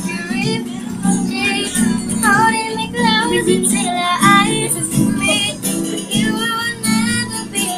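A girl singing a melody to a strummed guitar accompaniment.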